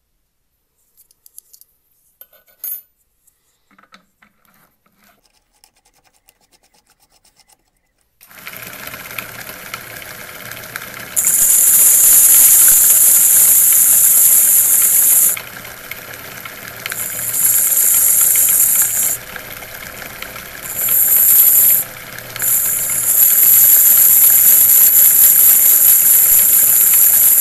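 A few light clicks as the watch bezel is handled and fitted onto the threaded spindle. About eight seconds in, the homemade grinding spindle's motor starts with a steady hum. A loud, high-pitched screech then comes and goes in four spells as a thin metal strip is pressed against the edge of the spinning bezel.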